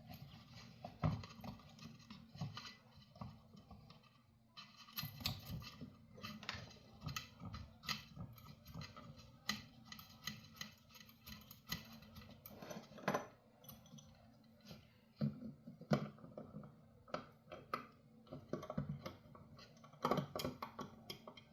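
Small metal nuts and bolts being handled and threaded onto a 3D-printed plastic part: irregular light clicks, taps and rattles.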